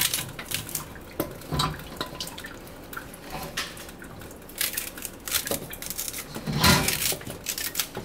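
Small knife cutting through crisp callaloo stalks held in the hand, giving irregular snaps and clicks as chopped pieces drop into a wet stainless steel colander, with the loudest cluster near the end.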